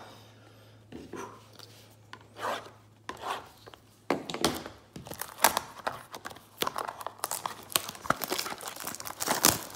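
Trading-card packaging being torn open and crinkled by hand. It starts about four seconds in and goes on as quick, irregular crackles and snaps.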